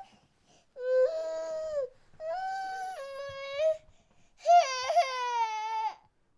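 A baby crying in three long wails with short breaths between them, the last one the loudest and breaking in pitch before it falls away.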